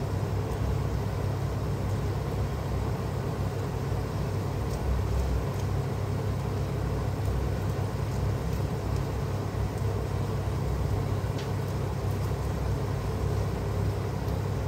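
Steady low rumble of a kitchen running at the cooking stove, with a few faint light ticks.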